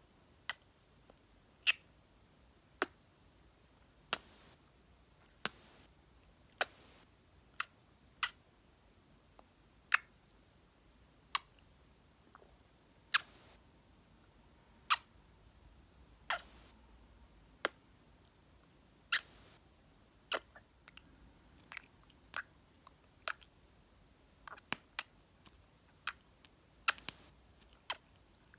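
Close-miked kissing and lip-smacking sounds, sharp wet pops about one a second, coming faster and less evenly near the end.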